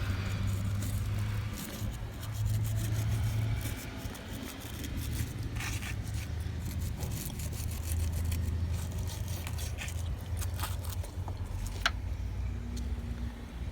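Scrubbing and scraping at a corroded battery terminal being cleaned with baking soda and water, heard as irregular scratchy strokes and small clicks over a low steady hum.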